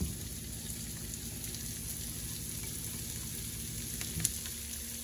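Chopped onion sizzling steadily in hot bacon fat in a skillet, a constant crackling hiss. A single light knock about four seconds in.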